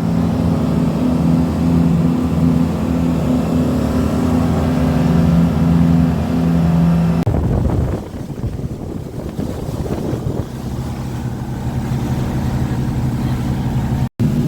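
Motorboat engines running steadily at speed, a low hum over a noise of wind and water. About seven seconds in the sound changes abruptly and turns noisier for a few seconds before the steady engine hum returns, and it cuts out for an instant near the end.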